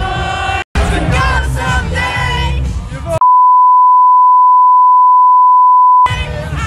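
Loud club music with voices singing and shouting along, briefly cut out for a split second, then replaced a little after three seconds in by a steady, one-pitch censor bleep lasting about three seconds, after which the music and voices come back.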